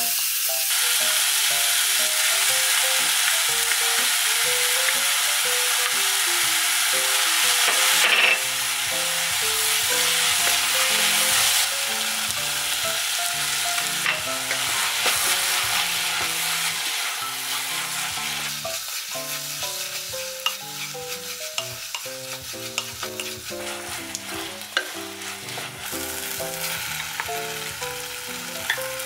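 Chopped vegetables sizzling as they fry in a pot while being stirred with a wooden spatula, with small scrapes and taps of the spatula. The sizzle is loudest for about the first ten seconds and then settles to a softer frying hiss once the seasoning paste is stirred in.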